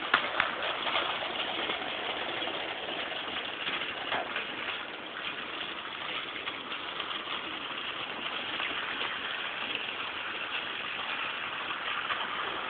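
Motorized toy train running along plastic track: a steady mechanical whir with faint small clicks.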